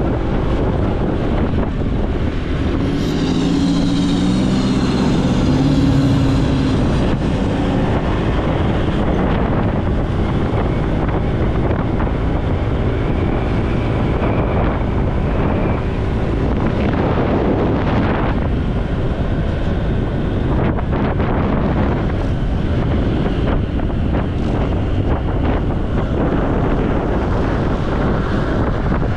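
Wind rushing over the microphone of a moving motorbike, mixed with road and traffic noise. A pitched tone, like a passing vehicle's horn or engine, stands out for a few seconds starting about three seconds in.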